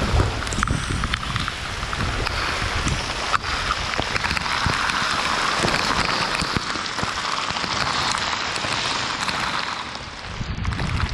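Heavy rain with wind buffeting the microphone, broken by scattered sharp taps of drops striking it.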